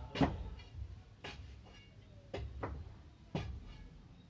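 Faint background music: single struck or plucked notes about once a second, each fading out quickly.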